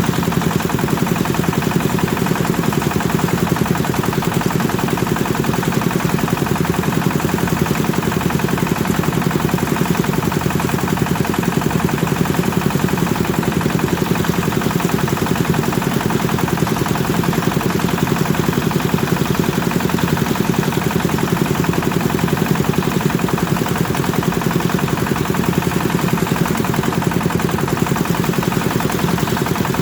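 Kubota diesel engine running steadily under load on a rice threshing machine, a fast, even chugging with the thresher's drum turning.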